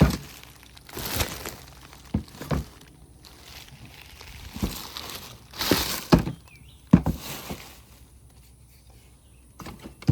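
Handling of items taken out of a box: a series of sharp knocks and thuds as things are picked up and set down, with a few stretches of rustling wrapping.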